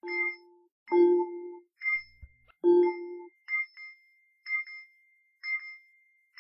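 Bell-like metallic chime notes struck one after another, about one a second, each ringing and fading. The first few notes carry a deeper tone; the later ones are only the high ringing, with a thin high tone holding between strikes.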